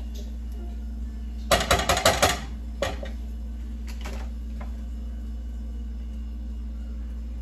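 A plastic spatula tapping and scraping as butter is scooped into a nonstick frying pan: a quick run of about eight sharp clicks, then a single tap about a second later and a couple of fainter ones after.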